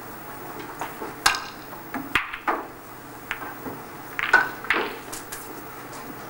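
Snooker break-off shot: hard, sharp clicks of the cue ball and reds knocking into each other and the cushions as the pack is split. The clicks come singly and in small clusters over a few seconds, one of them ringing briefly.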